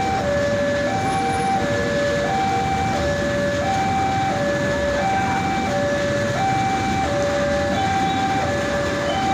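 Road level-crossing warning alarm sounding a steady two-tone electronic signal, a higher tone then a lower one, the pair repeating about every one and a half seconds. Underneath it is a steady noise from the freight train of tank wagons rolling through the crossing.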